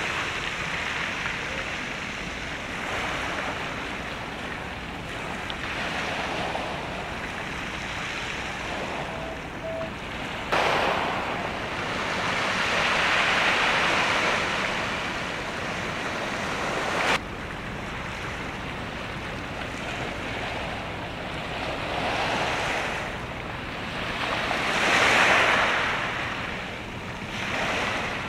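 Waves washing on the shore with wind on the microphone, an even hiss that swells and fades every few seconds. The sound jumps up suddenly about ten seconds in and drops back just as suddenly about seventeen seconds in.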